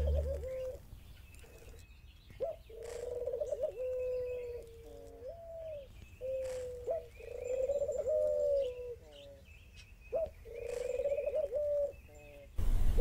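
White domestic doves cooing: a series of cooing phrases, each a second or two long, broken by short upward notes and brief pauses.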